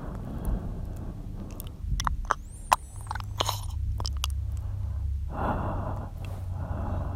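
Close-microphone ASMR mouth sounds from a man: a cluster of wet clicks and smacks in the middle, then a soft breath about five seconds in.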